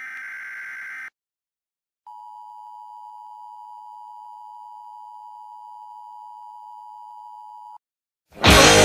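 A steady electronic beep tone, a single pitch a little under 1 kHz, held for about six seconds and then cut off. Just before it comes a brief burst of noisy sound, and loud music cuts in near the end.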